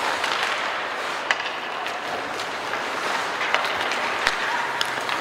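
Ice hockey play in a rink: skates scraping the ice and a few sharp clacks of sticks on the puck, over a steady wash of arena noise.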